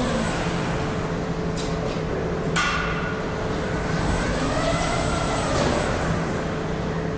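Automated coil-handling machine with a rotating arm running at speed: a steady machine hum with a whine that rises and falls in pitch as the arm speeds up and slows. A few sharp mechanical clicks come through, the loudest about two and a half seconds in.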